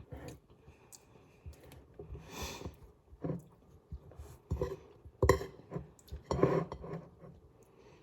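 Cutlery clinking and scraping against a dish while eating brownie, in a few irregular knocks and scrapes, the loudest a little past five seconds in.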